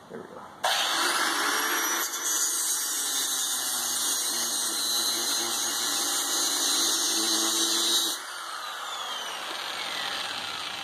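Angle grinder cutting steel: it starts abruptly under a second in and cuts steadily for about seven seconds, then is switched off and winds down with a falling whine.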